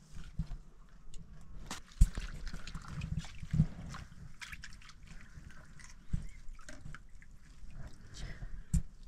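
Water sloshing and dripping amid irregular knocks and clicks of handling, the sharpest knock about two seconds in.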